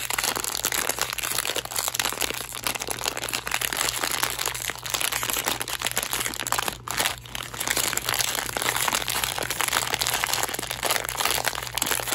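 Plastic blind-box bag crinkling steadily as fingers pinch and work at its corner to tear it open, with a brief pause about seven seconds in.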